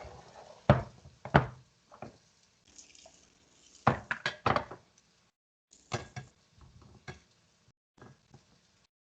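Kitchen clatter: a string of sharp knocks and clinks of dishes and utensils, loudest about a second in and in a quick cluster around four seconds in.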